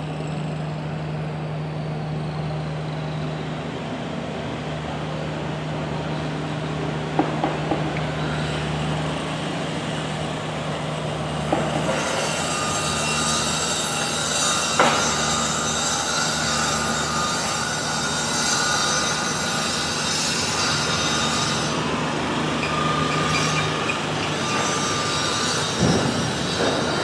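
A steady mechanical drone with a constant low hum, broken by a few sharp knocks and clanks.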